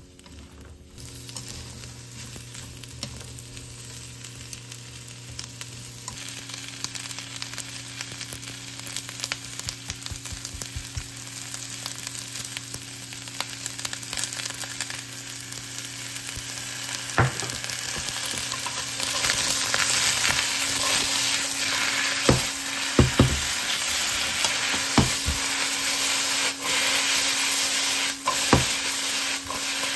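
Sliced onions sizzling as they stir-fry in a pan, stirred with wooden chopsticks. The sizzle grows steadily louder, with a few sharp clicks in the second half and a steady low hum underneath.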